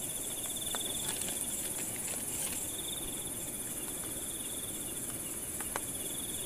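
Night insect chorus: a steady high-pitched hiss of insects with a fast pulsing trill at one pitch that breaks off about two seconds in and resumes. A few faint clicks sound over it.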